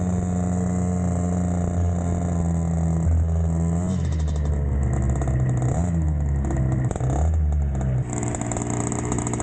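The small 50cc engine of a mini trail bike runs at a steady pitch, then revs up and down several times from about four seconds in, and settles to a steady pitch again near the end.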